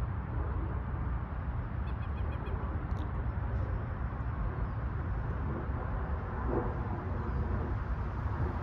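Steady low rumbling background noise with a few faint bird chirps, including a quick series of short high notes about two seconds in.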